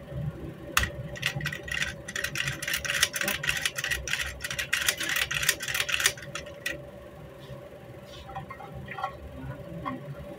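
Metal rifle parts clicking and rattling as they are worked by hand: a quick run of sharp clicks that stops about six and a half seconds in, followed by a few scattered clicks. A steady low hum runs underneath.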